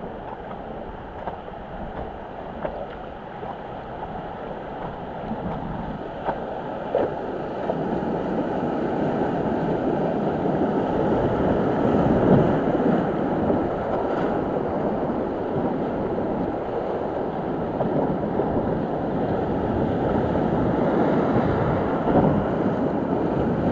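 River rapids rushing and splashing around an inflatable raft, growing louder about a third of the way in as the raft drops into whitewater.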